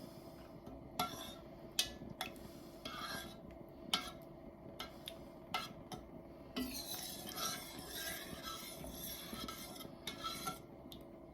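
A spoon stirring and scraping a thickening chicken, vegetable and broth mixture in a pot, with several sharp clinks against the pot and a longer stretch of scraping after the middle. A steady low hum runs beneath.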